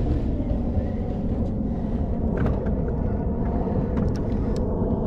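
Boat motor running with a steady low rumble and hum, with a few light clicks over it.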